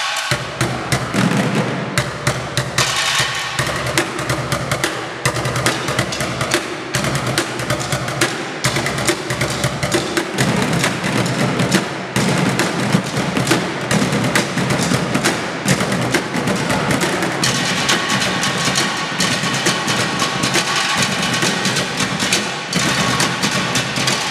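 Found-object percussion ensemble playing a busy rhythm of sharp strikes, drumsticks beating on plastic buckets and other objects set on folding chairs. The upper strikes grow denser about two-thirds of the way through.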